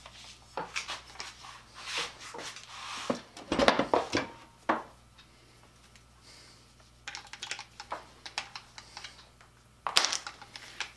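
Irregular light clicks and knocks of a corded power drill being handled, its chuck being turned by hand, with a dull thump about three and a half seconds in.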